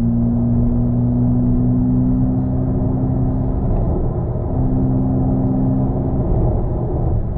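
Tyre and road rumble inside the cabin of a Smart #1 electric SUV cruising at highway speed, under a steady low hum that drops out briefly about four seconds in.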